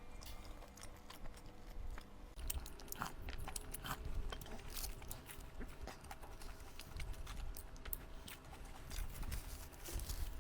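Close-miked chewing and mouth sounds of someone eating, with scattered small clicks.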